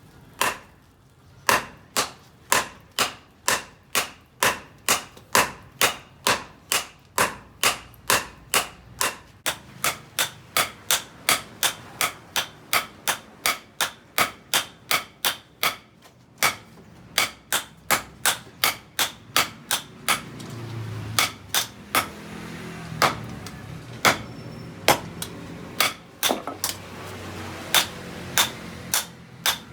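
Hammer blows forging steel, sharp ringing strikes at a steady pace of about two a second. After about two-thirds of the way through they slow to roughly one a second and hit harder.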